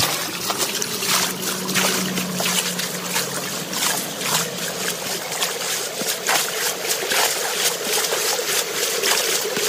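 Shallow, muddy stream water splashing and sloshing as a woven bamboo fish trap is pushed and worked through it by hand, with many short splashes over steadily running water.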